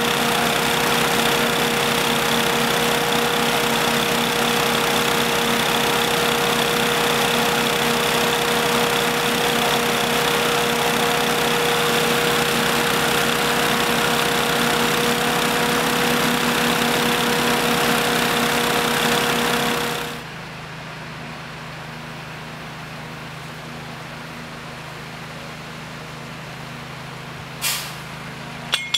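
Loud steady running of engine-driven equipment, a constant hum under a rushing hiss. It cuts off abruptly about two-thirds of the way through, leaving a quieter idling engine hum, with two short sharp clicks near the end.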